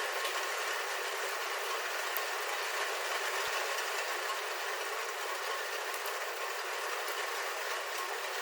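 Steady rain falling on a roof, heard from inside: a dense, even patter with a few sharper single-drop ticks.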